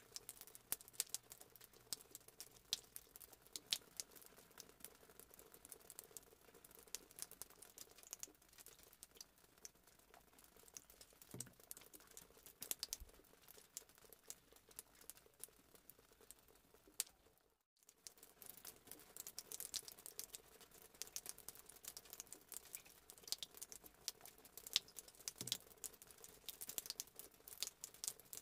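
Fried potato slices being mashed in a plastic bowl: a steady patter of small taps and scrapes as the utensil works the soft potato against the bowl. There is a brief break about two-thirds of the way through.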